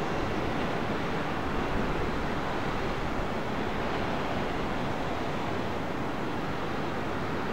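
Steady rushing noise of jet airliner engines, even in level throughout.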